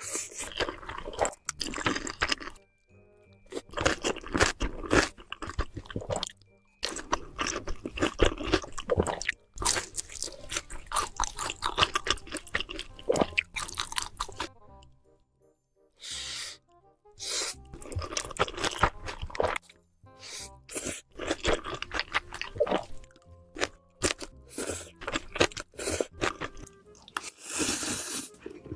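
Close-miked eating sounds: crunching and chewing of food in dense runs of crackles, broken by a few short near-silent gaps. Quiet background music runs underneath.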